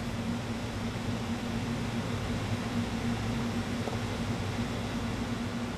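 Steady room background hum and hiss, a fan-like drone with a low steady tone and no other events.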